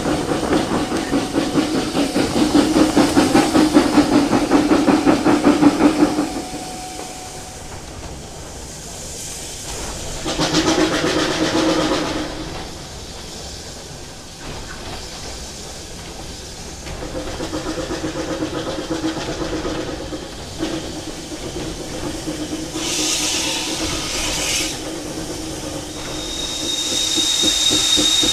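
GWR steam train heard from on board: rhythmic exhaust beats and hiss, loudest for the first six seconds, then quieter running with bursts of steam hiss. Near the end a steady high-pitched tone comes in.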